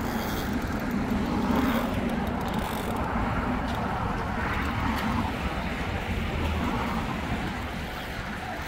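Traffic noise from the highway bridge alongside, a steady rumble that swells about one and a half and four and a half seconds in as vehicles pass.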